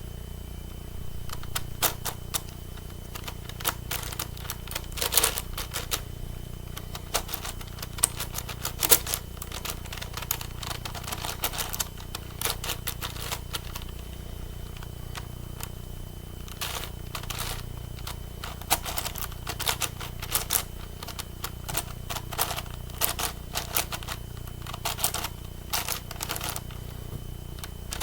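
A 9x9 Rubik's cube being turned by hand: quick, irregular clicking and clacking of the layers, in flurries with short pauses, the quietest stretch a little before the middle.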